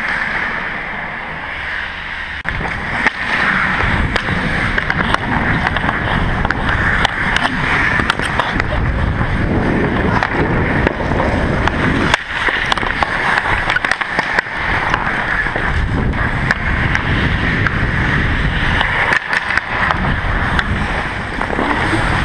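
Ice hockey skates scraping and carving the ice, with sticks clicking on the puck, heard from a player's helmet camera with air rushing over the microphone. It grows louder about three seconds in.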